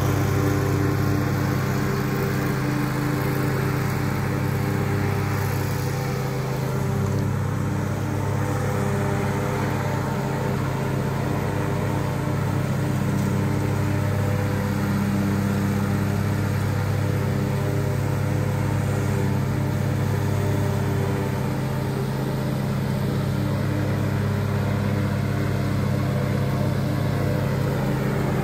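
The 22.5-horsepower Toro engine of a Toro TimeCutter zero-turn mower running steadily at an even pitch as the mower drives across the lawn.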